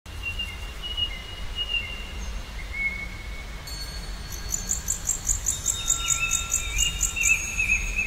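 Forest ambience: birds whistling and chirping over a low steady rumble. About halfway through, a high, rhythmic insect-like chirping joins in, about four pulses a second.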